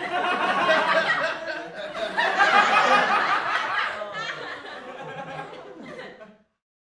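A group of people laughing together, many voices overlapping, fading out and stopping near the end.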